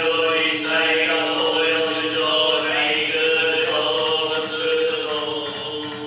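Buddhist chanting: voices intoning in long held notes over a steady drone, easing off a little near the end.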